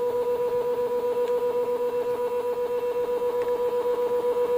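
NEMA 17 stepper motor, driven by a Pololu stepper driver, running with a steady high whine that pulses about five times a second. Its drive current is being turned up, and the whine grows slightly louder toward the end.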